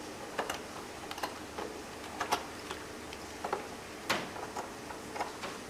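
Irregular light clicks and taps, about a dozen, some in quick pairs, over the steady whir of a desktop PC's cooling fan.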